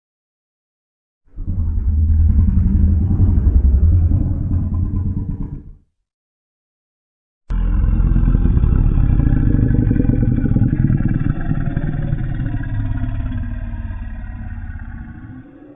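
Two low, rough, rumbling Godzilla creature sound effects. The first lasts about four seconds. After a gap of silence, a longer one starts abruptly and gradually fades away near the end.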